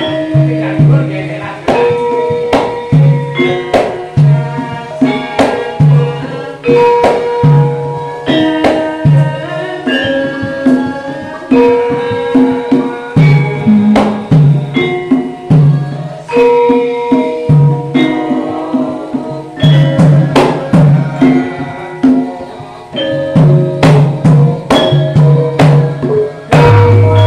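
Javanese gamelan ensemble playing: bronze metallophones and gong-chimes ring out a steady melodic pattern over kendang hand-drum strokes. A deep low tone sets in just before the end.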